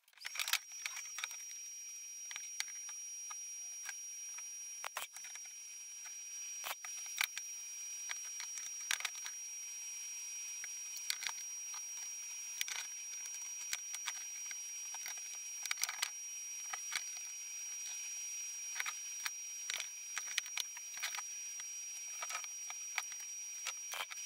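Electric welding arc on steel exhaust tube bends: a steady high hiss with a faint thin whine, broken by frequent irregular sharp crackles.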